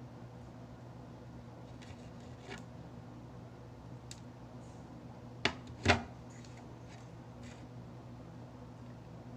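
Quiet room with a steady low hum and a few scattered light clicks, two sharper ones a little past the middle.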